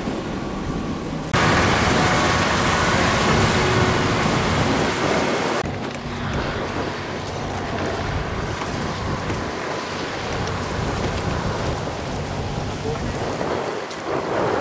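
Steady rushing noise of surf and wind on a pebble beach, with a louder stretch that starts suddenly about a second in and falls back about five seconds later.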